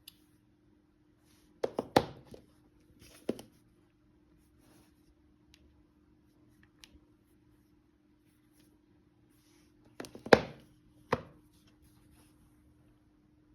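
A few sharp knocks and taps in two short clusters, the loudest about ten seconds in, over a faint steady hum.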